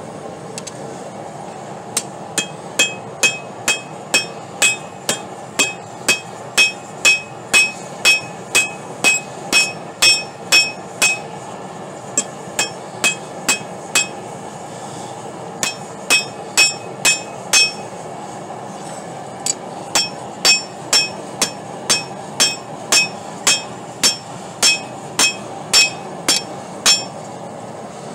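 Hand hammer striking a steel rod on an anvil in steady runs of about two blows a second, each blow ringing with a high metallic ring, broken by a few short pauses. The steady hiss of the running gas forge lies underneath.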